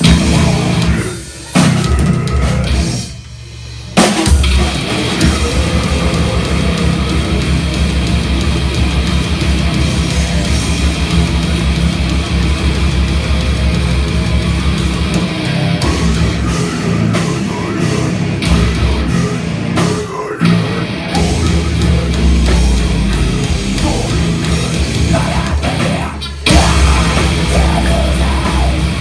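Live death-metalcore band playing heavy distorted electric guitars, bass and drums. The full band drops out briefly about three seconds in, then crashes back in, with short stops again near the end.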